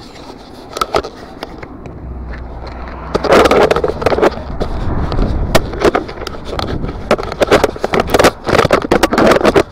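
Black plastic rubbish bags crinkling and crackling close up as they are handled and dragged over tarmac, in a run of sharp rustles and scrapes that grows loud about three seconds in. A low rumble sits underneath through the middle.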